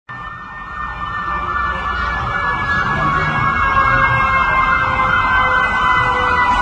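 A siren sounding steadily, growing louder over the first three seconds, its several held tones drifting slowly lower.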